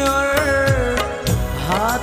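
Background music: a gliding, wavering melody over a steady drumbeat.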